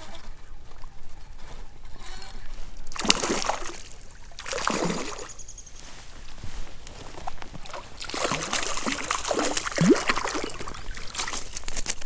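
A hooked brown trout splashing at the water's surface as it is played in. Separate bursts of splashing come about three seconds in and about five seconds in, then a longer stretch from about eight to eleven seconds.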